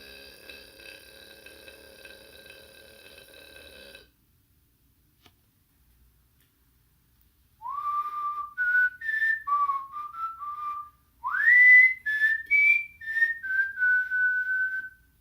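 A person whistling a short tune in two phrases, each note sliding up into place, starting about halfway in. Before it, a faint steady hum cuts off, followed by a few seconds of quiet.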